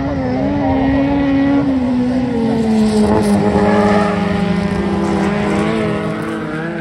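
Folkrace car engines running hard at high revs as the cars race past on a dirt track, with several engine notes overlapping. The sound builds to its loudest about halfway through, the pitch easing down a little, then fades slightly.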